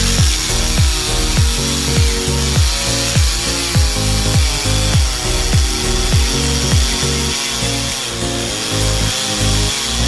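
Chainsaw cutting through a log, running steadily under background music with a deep bass beat about twice a second.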